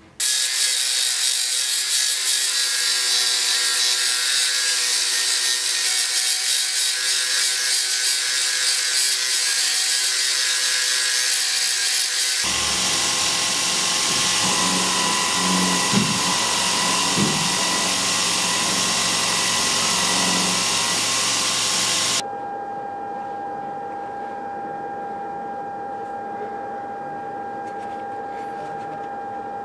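Belt grinder grinding a pattern-welded steel blade blank against the belt: a loud, steady hissing grind with a whine. The sound changes abruptly about 12 seconds in, then drops about 22 seconds in to a quieter steady single-note whine.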